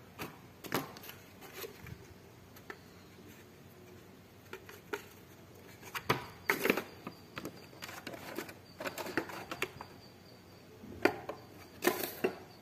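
Plastic seedling trays and a damp tissue being handled on a table: scattered light plastic clicks, taps and rustles, busiest about six seconds in and again near the end.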